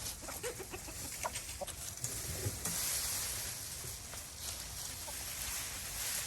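Chickens clucking in short calls during the first couple of seconds, followed by a steady rushing hiss for the rest.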